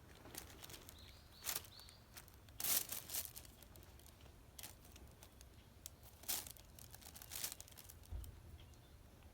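Cat grass rustling and tearing in short, irregular bursts as a kitten plays in it and pulls at the blades. The loudest burst comes about three seconds in.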